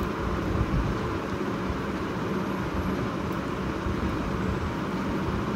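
Steady background rumble and hiss with no distinct events.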